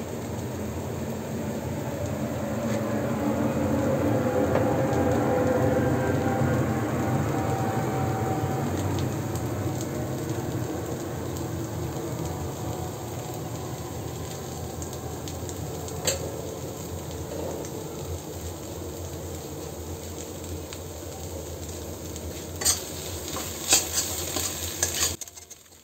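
Mustard-greens paste frying in hot ghee in a kadai, a steady sizzle that is loudest a few seconds in and slowly dies down. A steel spatula knocks against the pan once midway and a few times near the end as the paste is stirred.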